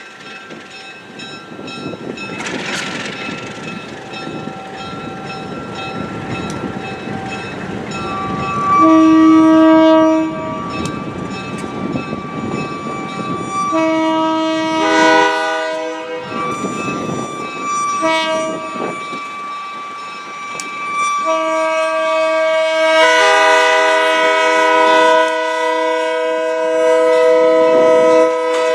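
Alco RS-18u diesel locomotive's V12 engine running as it rolls up to a road crossing, sounding its multi-tone air horn in the grade-crossing pattern: two long blasts, a short one, then a long blast held for about seven seconds near the end.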